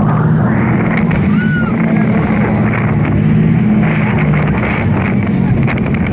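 Jet boat's engine running steadily under way, a low drone with rushing wind noise over it.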